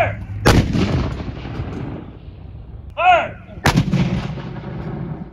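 Two 10-pounder Parrott rifled cannons fire one after the other, about three seconds apart, each on a pound of black powder. Each shot is a sharp boom followed by a long fading rumble, and each comes just after a single shouted command.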